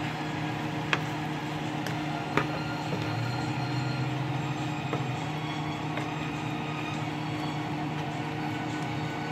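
Yakisoba noodles and cabbage being stirred and tossed in a frying pan with a utensil, over a steady mechanical hum. The utensil gives two sharp taps on the pan, about one second and two and a half seconds in.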